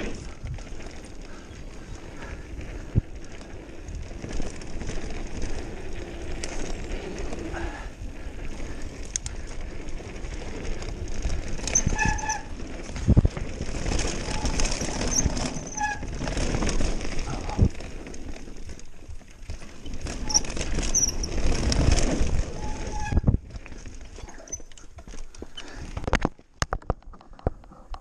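Mountain bike descending a dirt trail at speed: a steady rushing noise from wind and tyres, with the bike rattling and knocking over bumps. Near the end the rushing dies away as the bike slows to a stop, leaving a few scattered clicks and knocks.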